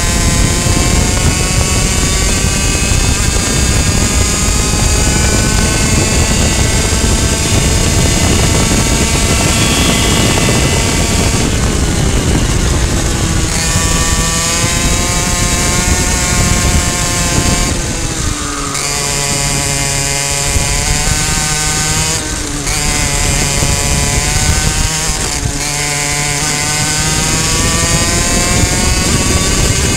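Two-stroke racing kart engine at race pace, heard onboard: its high-revving note climbs as it accelerates and falls away into corners, with several short dips when the throttle is lifted past halfway.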